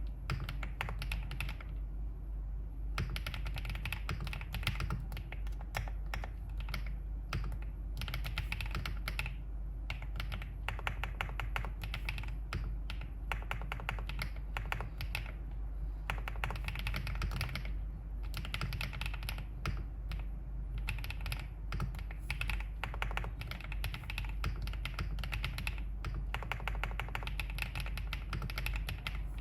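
Typing on a Wave75 aluminium-case mechanical keyboard with Qingzhu (green bamboo) switches: quick runs of keystrokes broken by short pauses of a second or less.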